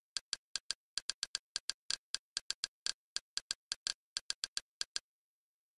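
Kodi's interface navigation sound: a quick, slightly uneven run of short, sharp clicks, about four or five a second, one for each step of the cursor down a list. They stop about five seconds in.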